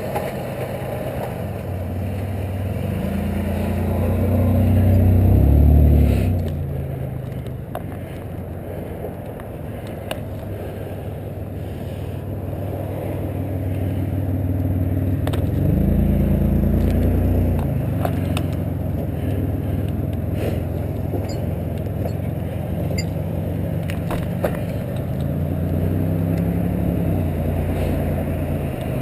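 Car engine and road noise while driving, the engine note climbing three times as the car accelerates and then settling back.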